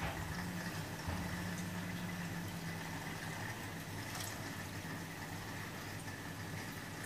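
Reef aquarium equipment running: a steady low hum with water moving through the tank.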